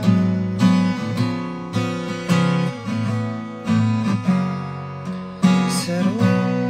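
Acoustic guitar strummed in a steady rhythm, each chord stroke ringing on into the next, as the accompaniment of a song.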